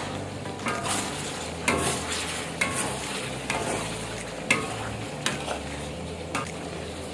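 A spatula stirring chicken in sauce in a pan over a steady sizzle, scraping and knocking against the pan about once a second.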